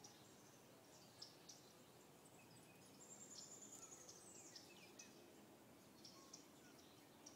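Faint birdsong: scattered short, high chirps, with a longer high-pitched call and a few falling notes about three seconds in, over a quiet background hiss.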